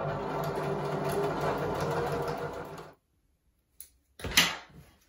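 Janome domestic sewing machine stitching a seam at steady speed for about three seconds, then stopping abruptly. After a short pause comes a click and a brief sharp sound as the work is taken out and the threads are dealt with.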